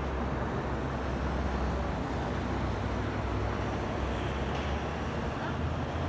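Steady city street ambience: a low, even rumble of traffic with no single sound standing out.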